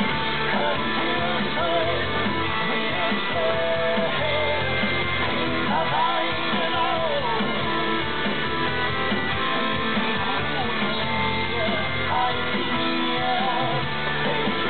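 Background rock music: guitar with a singing voice.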